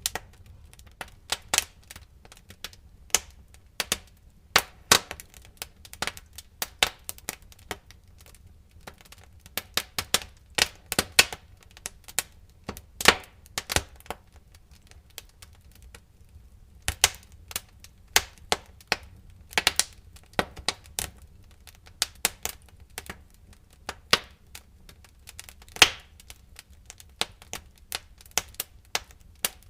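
Wood fire crackling in a fireplace: irregular sharp pops and snaps, some in quick clusters, over a low steady rumble of the flames.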